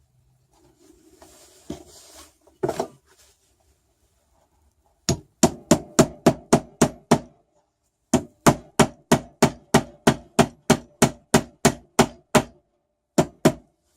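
Rapid light hammer taps, about four a second, in two runs of several seconds with a short break, then two more taps near the end: seating a cap onto a cap screw. A little handling and a couple of knocks come first.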